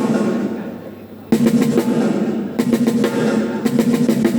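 Acoustic drum kit played in fast rolls: a run of rapid strokes dies away in the first second, then a longer run of rapid strokes starts about a second and a half in.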